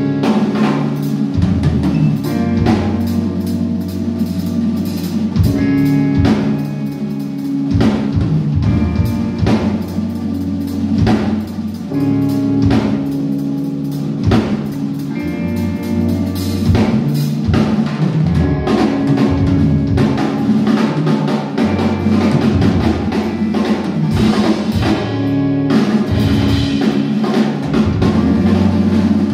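Live drum kit solo: fast, dense strokes on snare, toms, bass drum and cymbals, with sustained low pitched notes held underneath that change every couple of seconds.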